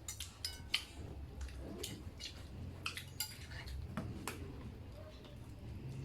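Mealtime tableware sounds: light, scattered clinks and taps of plates and utensils, a few with a brief ring, over a low steady hum.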